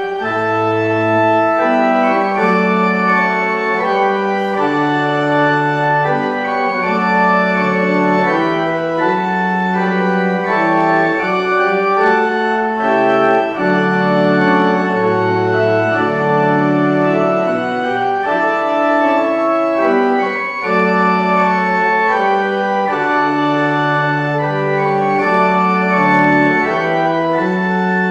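Church organ playing slow music in held chords over a low bass line.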